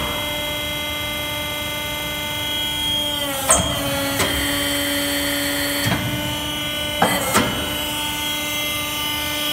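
Gross Genius 1/40 hydraulic briquette press pressing pine planer shavings: a steady pump-and-motor hum. Its pitch sags twice as it comes under load on a pressing stroke, and a handful of sharp knocks come as briquettes are compacted and pushed out.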